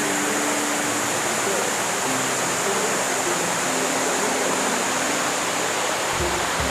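Waterfall: falling water rushing steadily as an even, unbroken hiss.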